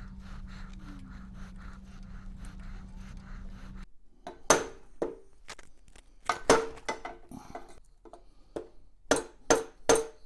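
A rubber mallet knocking a drill chuck upward onto a drill press's JT33 taper spindle to seat it by friction: about ten sharp knocks in the second half, some in quick pairs. Before the knocks there is a steady low hum, which cuts off abruptly about four seconds in.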